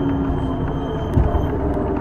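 City bus interior on the move: steady engine and road rumble, with a whine that slides a little lower in pitch and fades, and a single knock just after a second in.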